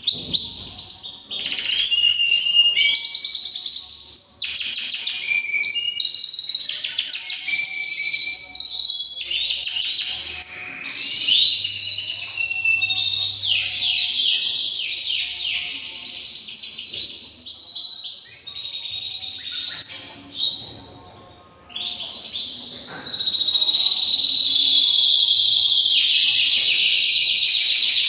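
Male canary singing a long, continuous song of rapid trills and warbling glides, broken by short pauses about ten seconds in and again around twenty seconds. Near the end it settles into a long, even high trill.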